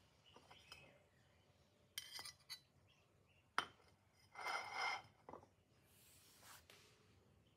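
Metal cake server clinking and scraping on a ceramic plate as a slice of cake is set down: a few light clinks about two seconds in, a sharp tap shortly after, then a short scrape as the server slides out from under the slice.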